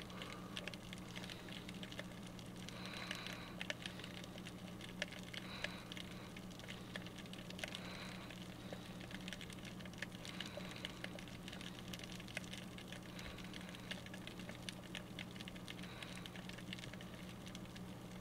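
Faint underwater crackle of many scattered small clicks picked up by a submerged GoPro, over a steady low hum.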